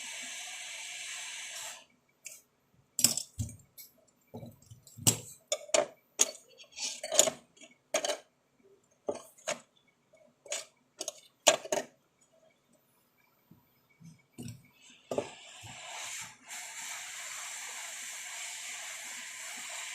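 Hot air rework station blowing with a steady hiss, cutting off about two seconds in. Then a run of sharp metallic clicks and clinks from small hand tools on the workbench, about a dozen, before the hot air blowing starts again about fifteen seconds in.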